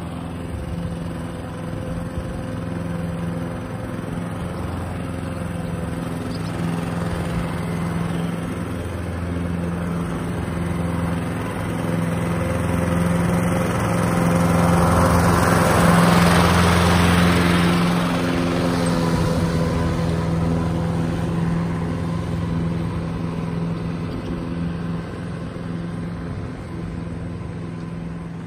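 Toro ProStripe 560 walk-behind rotary lawn mower running steadily while mowing. It grows louder as it comes close about halfway through, then fades as it moves away.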